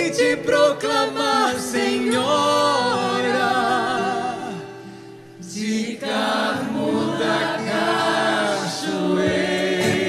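A choir sings a Portuguese Marian hymn with string accompaniment, in long held notes with vibrato. The music drops away briefly about five seconds in, then swells back.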